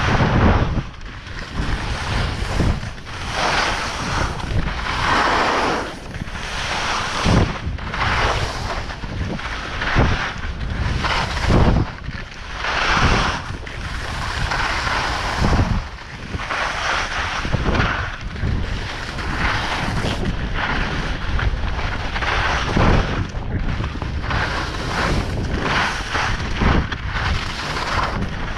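Skis scraping and swishing on groomed snow in linked turns, a noisy surge with each turn every second or two, under wind rushing over the microphone.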